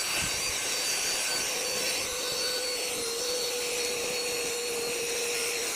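Rechargeable handheld car vacuum cleaner running steadily, a held motor whine over rushing air, as it vacuums snack crumbs off a car seat.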